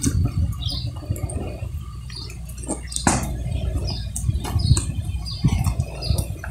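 Hot dye liquid splashing and dripping in a large metal pot as wool is worked and lifted in it with a wooden stick, with a few sharper splashes or knocks, over a steady low rumble.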